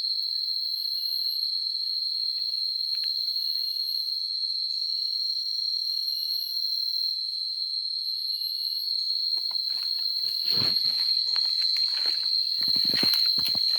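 Steady high-pitched chorus of insects. From about nine seconds in, irregular knocks and rustles sound over it.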